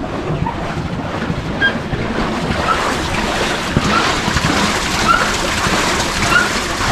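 Wind buffeting the microphone and water washing around a moving boat, a steady rushing noise. A short faint chirp repeats about every second and a quarter through the second half.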